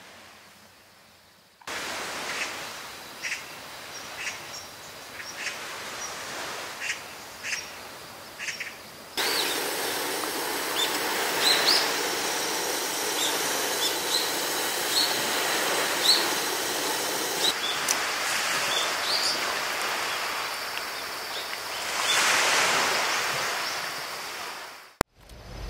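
Seaside ambience: a steady rushing of surf with short bird chirps scattered through it. The background steps up abruptly about two seconds in and again about nine seconds in.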